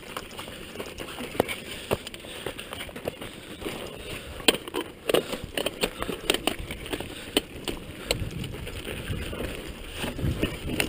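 Downhill mountain bike riding over a dirt and rock trail: steady tyre noise, with a clatter of sharp clicks and knocks from the bike over the rough ground, thickest in the middle.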